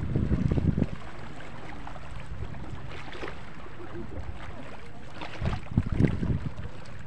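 Wind buffeting the microphone in low gusts, strongest in the first second and again at about five and a half to six seconds, over a steady low rumble of wind.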